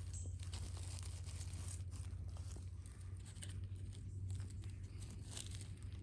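Dry fallen leaves rustling and crackling as hands rummage in the leaf litter and pull wild yellow mushrooms from the forest floor, with irregular crisp crinkles over a steady low hum.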